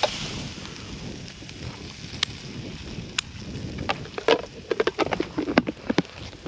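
Wind noise on the microphone, with scattered sharp clicks and short plastic rattles as a plastic food container is handled and its lid pressed shut, most of them about four to six seconds in.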